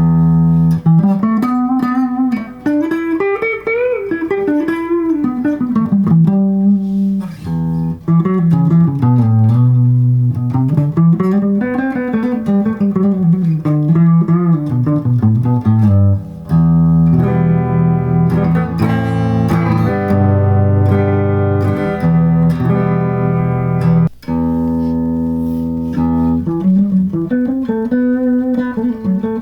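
Les Paul-style kit electric guitar played through effects pedals. It starts with single-note lead lines whose pitch slides and bends up and down, moves to held chords a little past halfway, and ends on a melody line again.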